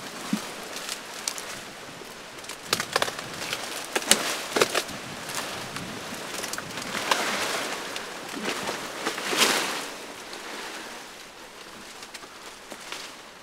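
Tree branches and leaves rustling and twigs cracking as someone climbs and shakes through the foliage. There are scattered sharp snaps and two longer swells of rustling in the second half.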